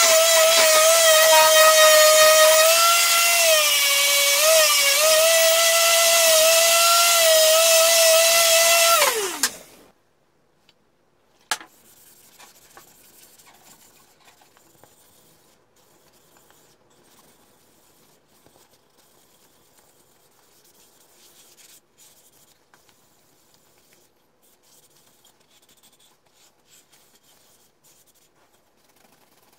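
Handheld electric sander running against a beech hammer handle with a steady high whine that sags briefly under pressure, then winds down with a falling pitch about nine seconds in. A single click follows, and then faint rubbing as a cloth is wiped over the wooden handle.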